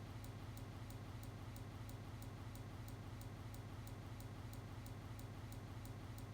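Faint steady low electrical hum with light, even ticks about three times a second.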